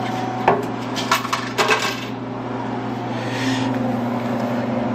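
Change coins dropping and clinking into a soda vending machine's coin-return cup: a sharp click, then two quick clusters of clinks, over the machine's steady low hum.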